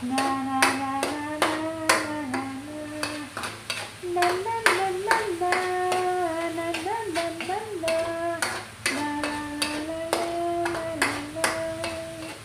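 A person singing a wordless tune in held and gliding notes, over a spatula clicking and scraping against a stainless steel pan as onions and garlic are stirred.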